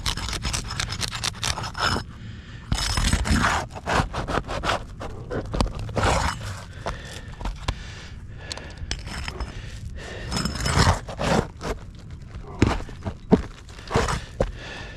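Asphalt 3-tab roofing shingles being pried up and scraped loose for a repair, in a run of irregular scraping and crackling strokes. These are old shingles that crease and shed granules as they are worked.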